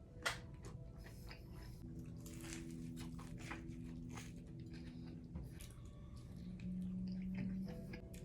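A person chewing a mouthful of grilled cheese sandwich close to the microphone, with wet mouth clicks and a sharper bite about a quarter second in. A steady low hum sounds through the middle and again briefly near the end.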